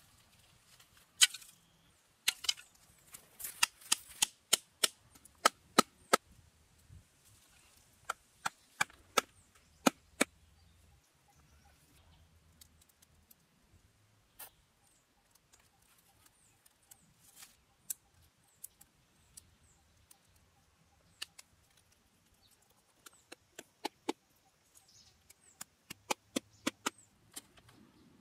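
Blade chopping into wood: sharp, separate strikes in quick runs of several at a time, with pauses between runs.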